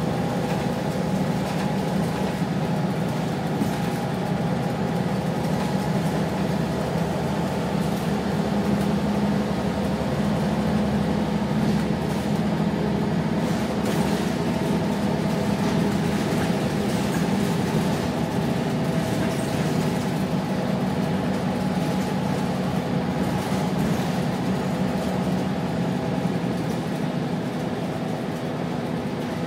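Wright Solar-bodied Scania single-decker bus under way, heard from inside the passenger saloon: the engine runs steadily under a haze of road noise.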